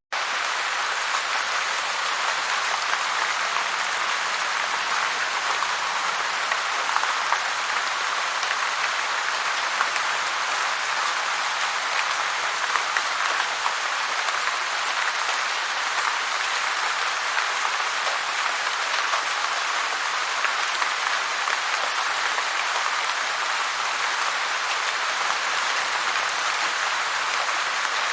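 Heavy rain falling steadily: a dense, even patter and hiss, mostly high in pitch with little low rumble.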